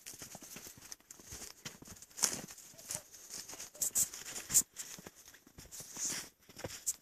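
Footsteps crunching in snow at a walking pace, an uneven run of crunches with a few sharper ones about two, four and six seconds in.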